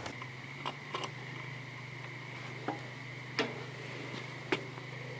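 Scattered light clicks and ticks of wire terminals and connectors being handled while wiring is routed, about six in all with the sharpest about three and a half seconds in, over a steady low hum.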